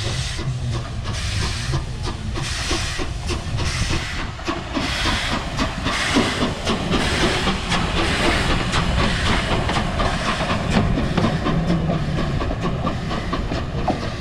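Steam locomotive pulling away with a train, its exhaust chuffs about one a second at first and quickening, with steady hissing steam over a low rumble.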